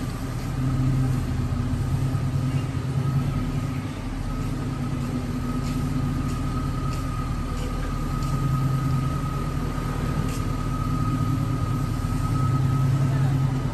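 1985 Chevrolet Monte Carlo's engine idling through a Flowmaster Super 44 series muffler: a low, steady exhaust rumble that swells slightly a few times as the car rolls slowly forward.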